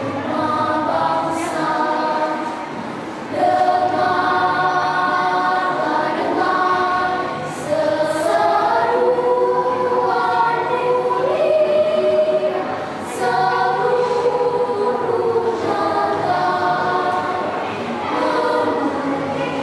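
Children's choir singing in several-part harmony, held notes moving through phrases with brief breaks between them.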